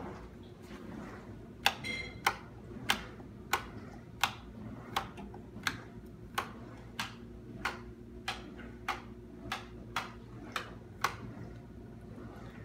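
A steady series of about sixteen sharp clicks or taps, roughly one and a half a second, starting a couple of seconds in and stopping about a second before the end.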